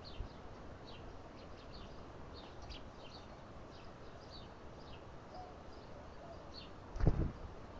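Small birds chirping: short, high, down-slurred chips, several a second. A dull thump comes about seven seconds in.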